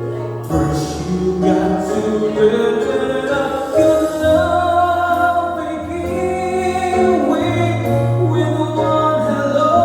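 A song with sung vocals holding long notes over an accompaniment with a steady bass.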